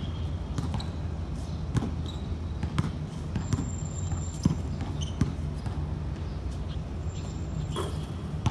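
Basketball bouncing on a hard outdoor court as a player dribbles, a run of uneven thuds over a steady low background hum.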